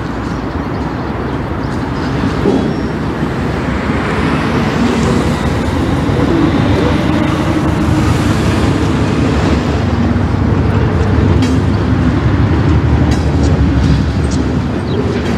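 Diesel freight locomotive rumbling as it approaches at low speed, growing louder over the first few seconds, with a car driving past around the middle.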